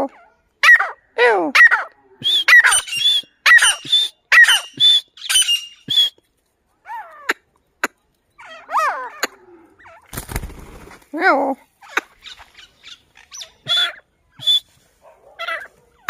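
Grey francolin (teetar) calling: short, harsh calls that fall in pitch, repeated in quick succession for the first six seconds, then more scattered. About ten seconds in comes a short burst of noise.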